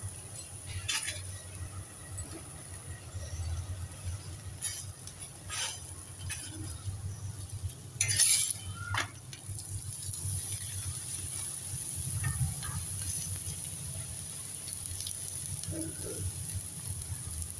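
Steel spatula scraping and clinking against an iron tawa every few seconds as an aloo paratha is pressed and turned, loudest about eight seconds in, over a steady faint sizzle of the paratha frying in ghee.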